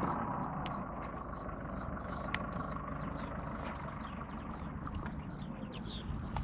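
Songbirds singing, with many short high chirps, several of them falling in pitch, over the low steady rumble of an idling engine.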